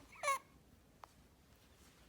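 Short high-pitched squeak from an infant with laryngomalacia, near the start, followed by a faint click about a second in.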